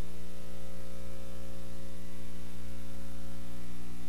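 Steady electrical mains hum with a stack of evenly spaced overtones, over a faint hiss.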